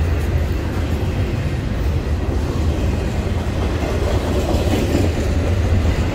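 Double-stack intermodal freight train's loaded well cars rolling past, a steady loud rumble of steel wheels on rail.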